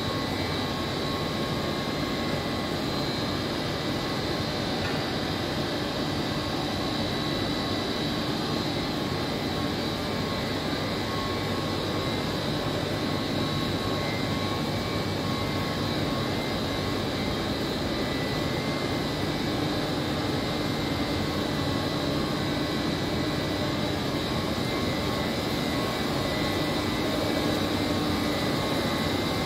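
Chiller plant room machinery running: a Trane screw-type chiller's compressor and the circulating pumps. The result is a steady rush with a few high, steady whining tones over it, unchanging throughout.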